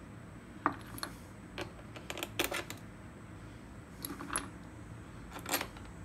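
Steel crankcase bolts clinking against each other as they are handled and picked out of a plastic bag: a handful of short, sharp metallic clicks at irregular intervals.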